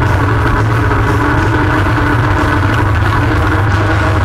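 ATV engine running at a steady, even speed, a constant drone with no revving or change in pitch.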